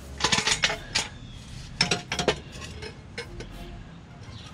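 Metal exhaust pipe clanking and knocking as it is held up and twisted into position under a car, with a cluster of clanks near the start and another about two seconds in, then a few lighter ticks.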